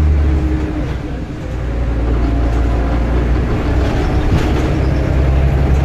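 Scania bus diesel engine running under way. The engine note drops briefly about a second in, then builds again and grows stronger near the end.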